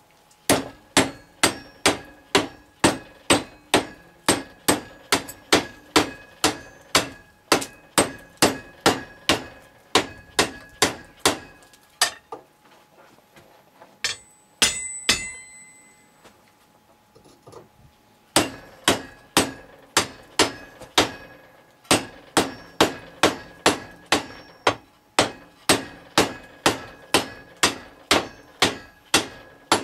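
Hand hammer blows on a red-hot steel bar over a cone-shaped anvil tool clamped in a bench vise, forging a door hinge strap. The blows come at about two a second, each with a short metallic ring. The hammering stops for about six seconds midway, with a few metal clanks, then resumes at the same pace.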